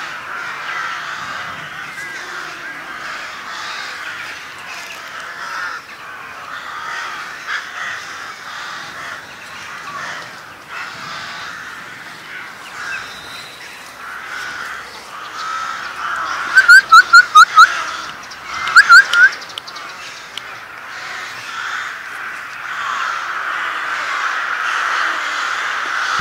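Short, sharp animal calls: a quick run of five, then three more a moment later, about two-thirds of the way through, over a steady background hiss.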